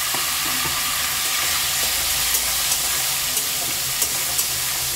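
Potatoes and freshly added tomatoes sizzling steadily in hot oil in an aluminium kadai, with a few sharp clicks of a metal spatula against the pan as they are stirred in the second half.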